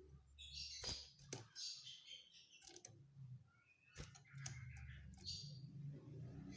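Common iora (cipoh/sirtu) calling in a series of short, high chirps and trills, with a few sharp clicks among them.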